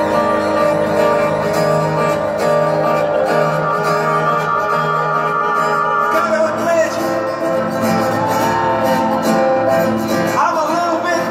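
Live rock band playing, heard from the audience: held electric guitar chords over a pulsing bass line, shifting to a new chord about six seconds in, with a sliding melody line entering near the end.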